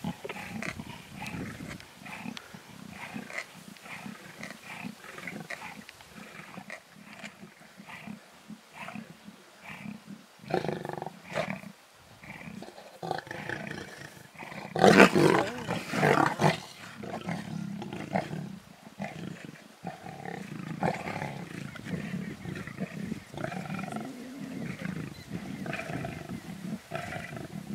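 Lions growling and snarling at one another as they feed on a wildebeest carcass, a sign of squabbling over the kill, with one loud snarl about halfway through.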